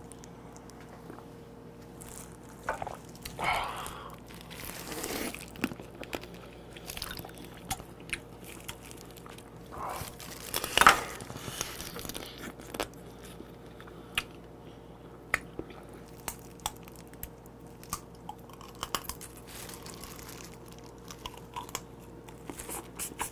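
Close-up eating sounds of soy-marinated raw blue crab: chewing and biting into the crab, with scattered crunchy clicks and a few louder wet bursts.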